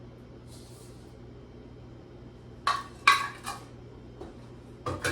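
Kitchen utensils clattering at a mixing bowl while sugar is added: three sharp, ringing clinks in quick succession just past the middle, as of a measuring cup knocked against the bowl, then a duller knock near the end.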